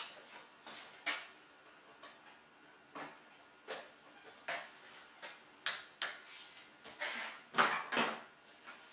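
Irregular light clicks and knocks, about a dozen spread over several seconds, with no engine running.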